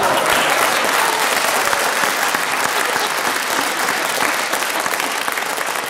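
Studio audience applauding, many hands clapping together, the clapping slowly thinning out.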